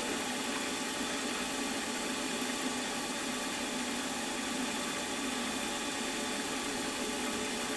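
Milling machine running steadily with its spindle at about 1500 rpm and a centre drill held clear of the work, not cutting: an even hum with a few constant tones.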